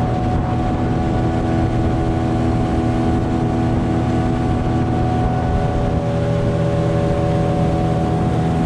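Yamaha outboard motor on a small aluminium tinny running steadily under way, an even drone with a light rush of wind and water.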